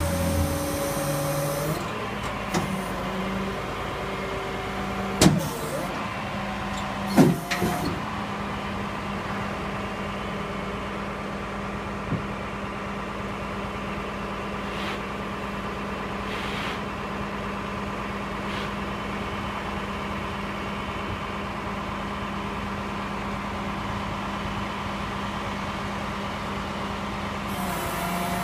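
Flatbed tow truck running steadily with a whining hum while the pickup is loaded onto its tilted bed, with two loud knocks about five and seven seconds in.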